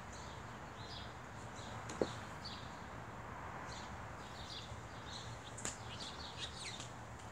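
Small birds chirping in short, repeated calls over a steady low background hum, with one sharp click about two seconds in.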